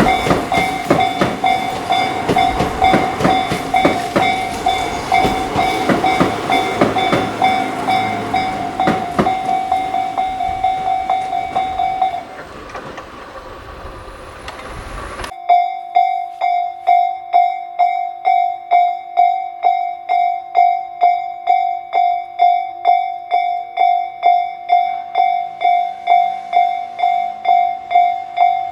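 An electric train clatters over a Tobu Railway level crossing while the crossing's electronic warning bell dings. About twelve seconds in, the train noise dies away and the bell stops. After a sudden cut, a crossing warning bell rings alone and steadily, about two dings a second.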